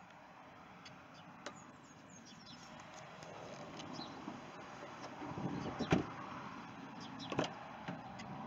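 Quiet shuffling and handling noise in a pickup truck's cabin, with sharp clicks and knocks from its doors. The loudest is a click with a dull thump about six seconds in, and another sharp click comes a second and a half later.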